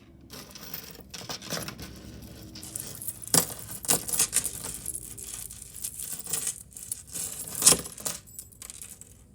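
Pieces of jewelry clinking and jangling against each other as they are handled and sorted, with a few sharper clinks, the loudest one near the end.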